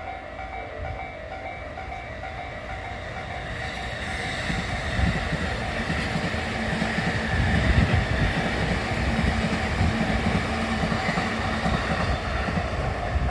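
Railway level-crossing warning bell ringing in a steady repeating tone. From about four seconds in, a passing train's rumble and wheel clatter build up and grow loud.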